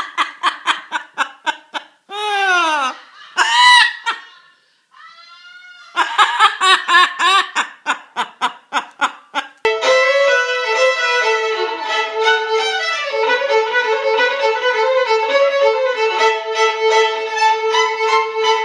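A parrot chattering in rapid trains of short pitched calls, about five a second, with a couple of falling whistled calls in between. From about ten seconds in, music with bowed strings and sustained notes takes over.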